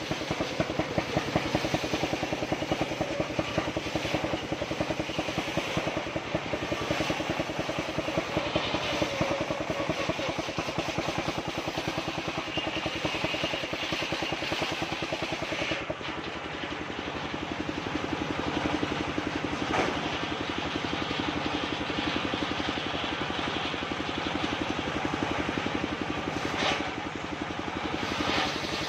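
Homemade circular saw running, with a rapid, even engine-like pulsing throughout. For the first half a brighter, higher sound of the blade cutting jackfruit wood rides over it, then drops away suddenly about halfway through while the saw keeps running.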